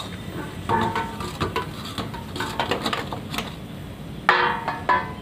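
Stainless-steel dishes and bowls clattering and clanking against each other as they are washed by hand, with a loud ringing clank about four seconds in.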